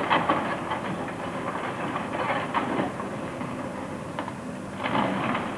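Hydraulic excavator's engine running while it tears down a house, with repeated clattering crashes of falling rubble and roof tiles. The crashes are loudest right at the start, again two to three seconds in, and near the end.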